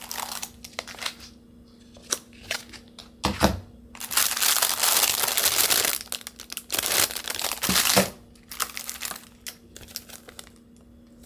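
Plastic food packets and a paper instruction sheet crinkling and rustling as they are handled: the sealed bag of ramen noodles and the wrapped seaweed sheet. The rustling comes in irregular stretches, the longest and loudest in the middle, with a couple of dull knocks.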